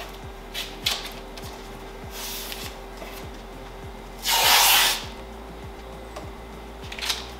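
Blue adhesive tape being pulled off its roll, with one loud, long rip about four seconds in and shorter tearing and rubbing sounds as strips are pressed onto the edge of the screen-printing pallet.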